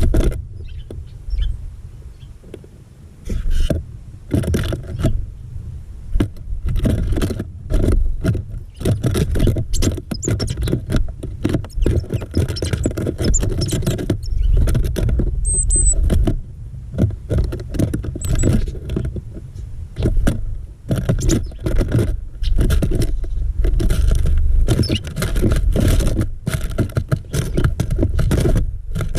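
Small birds pecking and scrabbling at a bird feeder right against the microphone: rapid, irregular taps and knocks over a low rumble, with two brief high chirps midway.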